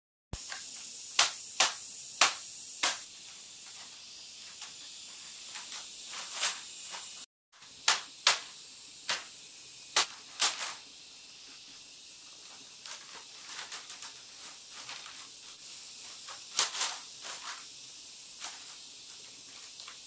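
Split bamboo strips clacking and snapping against each other as they are pulled and worked into a woven mat. The sharp clicks come one at a time and in quick groups, over a steady high hiss.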